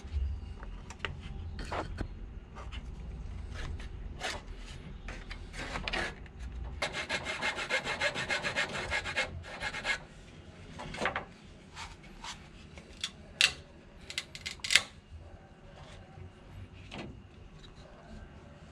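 Small hand saw cutting through a thin wooden board in a quick, even run of strokes, amid scattered clicks and knocks of the wood being handled. Two sharp knocks stand out after the sawing stops.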